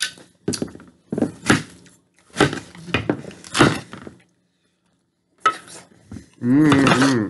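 A large kitchen knife chopping through watermelon, with a run of sharp knocks and clinks over the first four seconds. Near the end there is a short vocal sound.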